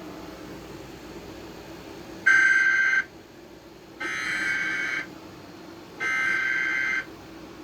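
Emergency Alert System SAME header: three bursts of warbling digital data tones, each about a second long with about a second's gap between them, the first louder than the other two. The header is the coded start of an alert, here a National Weather Service tornado warning.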